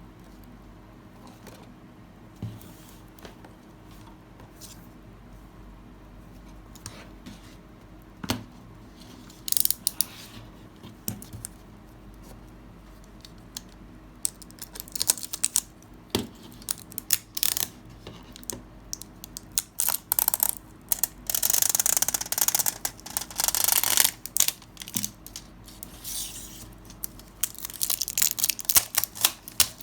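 Hands handling a model kit's box and packaging: scattered light clicks and taps at first, then from about halfway long stretches of rustling and tearing of cardboard and plastic wrapping.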